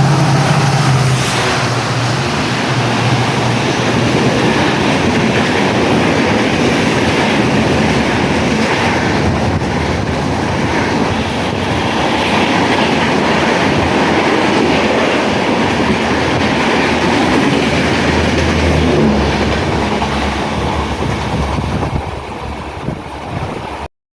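Express passenger train's coaches rushing past at about 111 km/h: a loud, steady rush of wheel and rail noise with clattering over the rail joints. A low pitched tone dies away in the first second, and the noise eases and then cuts off abruptly near the end.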